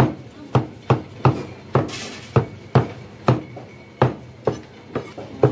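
Butcher's cleaver chopping boneless beef into mince on a round wooden block: sharp, steady chops about two a second.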